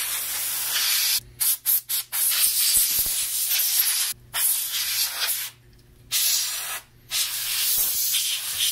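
Aerosol can sprayed through a thin straw nozzle over a computer logic board to clean it, in a series of hissing blasts. There is a cluster of short puffs about a second and a half in, then longer blasts of a second or two each with brief pauses between.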